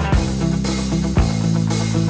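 Instrumental background music with guitar, bass notes and drum hits.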